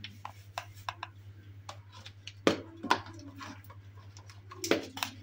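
Plastic measuring cup knocking against a plastic mesh sieve as flour is tipped in: a run of light clicks and taps, the loudest about two and a half, three and nearly five seconds in, over a steady low hum.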